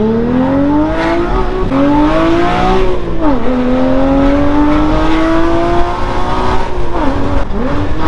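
Porsche Cayman GT4's 3.8-litre flat-six, running through a full IPE exhaust, accelerating hard under full throttle with the revs climbing, dropping briefly at upshifts of the manual gearbox about three and seven seconds in, then climbing again.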